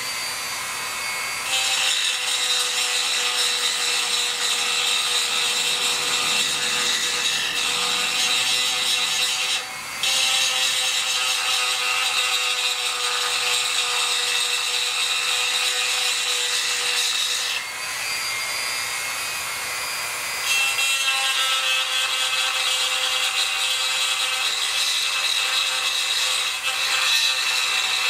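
Dremel 4000 rotary tool with a porting bit grinding out and cleaning up the ports of a Chinese 80cc two-stroke bicycle-engine cylinder. It is a steady high whine with a rasping grind as the bit bears on the metal. It stops for a moment about ten seconds in and runs lighter for a few seconds past the middle.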